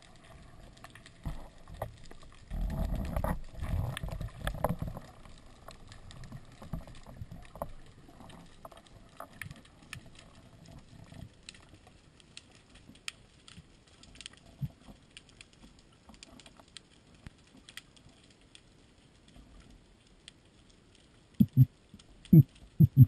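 Underwater sound of a diver swimming with a speargun: water rushing past, with a louder stretch of low rushing about three seconds in, scattered sharp clicks and crackles throughout, and a few loud low knocks near the end.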